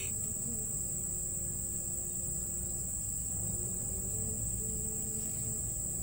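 Steady high-pitched chorus of insects, one even unbroken buzz, over a faint low rumble.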